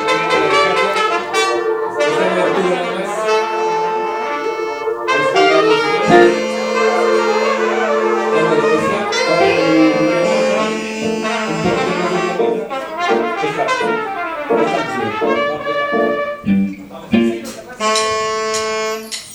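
Live band music led by brass horns, with some notes held long.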